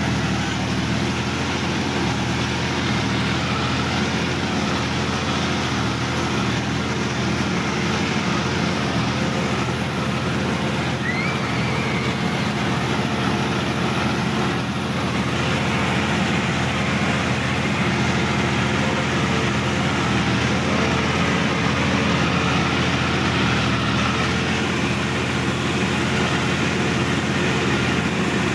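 Sonalika DI-50 RX Supreme tractor's diesel engine running steadily under load, heard from the driver's seat, as the tractor works through a muddy paddy field.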